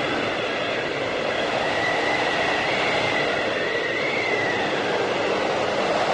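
Whiteout blizzard wind: a steady, dense rush of wind with a thin whistle that wavers in pitch for a few seconds in the middle.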